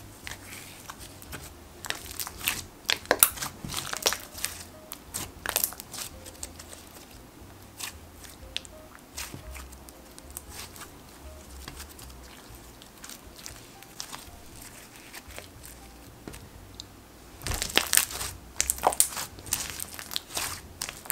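Stretchy clay-textured slime being squished, folded and pressed by hand, making clicky air-bubble pops and wet crackles. The pops come thickly a couple of seconds in and again in the last few seconds, with lighter squishing in between.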